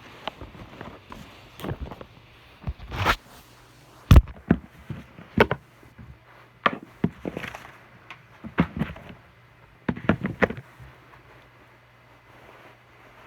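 An irregular series of knocks and clattering impacts of handled objects, a few strokes every second or so with pauses between, the sharpest about four seconds in.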